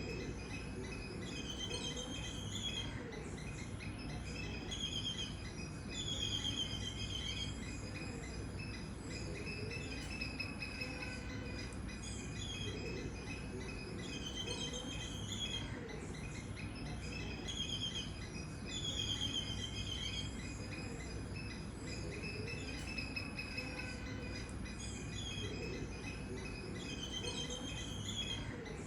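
Birds calling in short chirping phrases that come back about every three seconds, over a steady high trilling of insects and a low background hiss.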